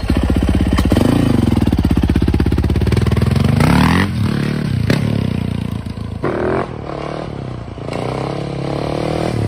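Yamaha YZ450F dirt bike's single-cylinder four-stroke engine revving hard as the bike accelerates away, its pitch climbing and dropping back at each gear change about four, five and six seconds in, while the rider lifts the front wheel in a wheelie. The engine grows somewhat fainter as the bike pulls away, then rises again near the end.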